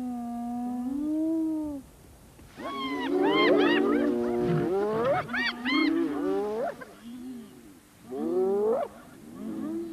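Spotted hyenas calling in excitement around a kill: a held whining call, then several animals at once giving short cries that sweep sharply up in pitch, with more rising cries near the end.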